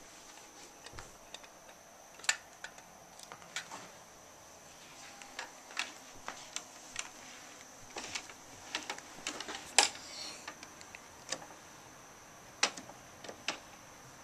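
Irregular plastic clicks and clacks from hands working the parts of a Bruder toy garbage truck, with a few sharper snaps about two, ten and twelve and a half seconds in.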